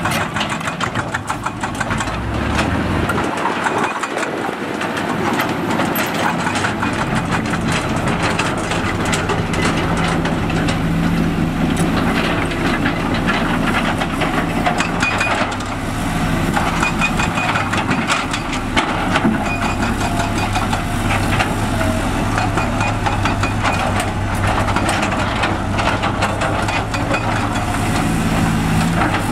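Diesel engines of heavy construction machinery running steadily, with a continual clatter of sharp clicks over the engine drone.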